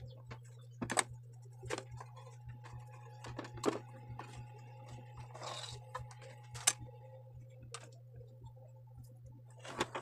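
Scattered light clicks and knocks of parts and electrical cords being handled on a workbench, with a short rustle in the middle, over a steady low hum.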